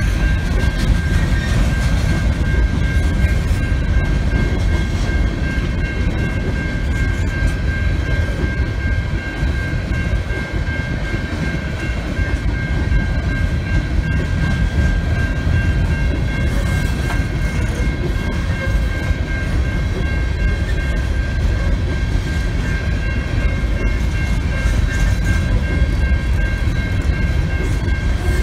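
Union Pacific coal train's cars rolling past a grade crossing: a steady low rumble from the wheels on the rails, with a steady high-pitched tone running over it.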